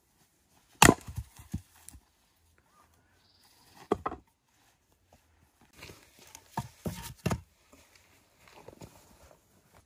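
An axe splitting firewood: one sharp crack about a second in, with split pieces clattering down just after. This is followed by a single knock near four seconds and a run of several lighter wooden knocks and clunks as split logs are handled and laid in a steel fire ring.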